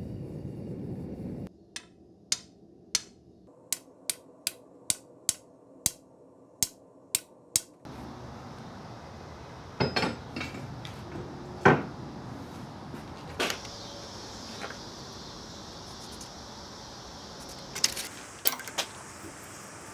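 Gas forge running for the first second and a half, then cutting off. After that come about a dozen sharp metallic taps, roughly two a second, and then scattered metal knocks and clanks over a steady background hiss.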